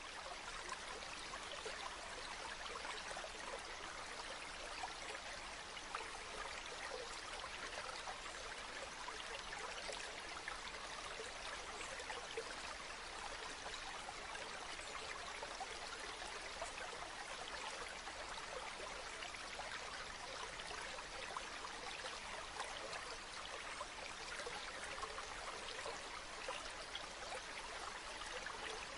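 Running water of a stream, a steady even trickle and splash with little low rumble.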